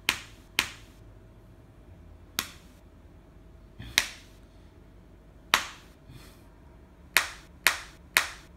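Open-hand slaps on a person's body, about eight sharp smacks: two quick ones at the start, then single slaps a second or two apart, and a quick run of three near the end.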